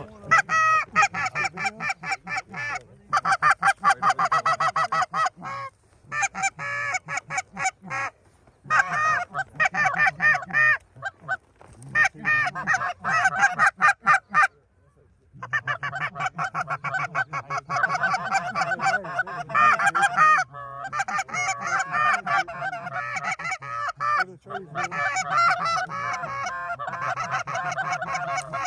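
Geese honking and clucking in a rapid, continuous series, stopping briefly a few times.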